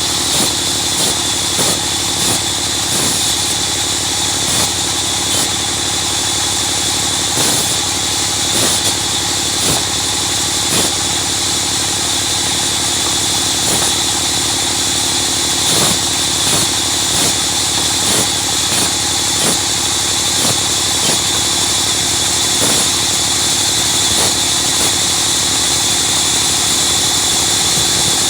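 Sawmill wood-cutting machine running steadily, with a loud continuous high hiss and frequent irregular knocks and clatters.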